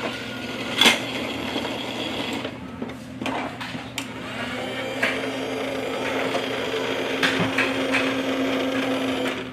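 Battery-powered toy garbage truck's motorized side-loader arm whirring steadily as it moves the bin, with a few sharp plastic clicks.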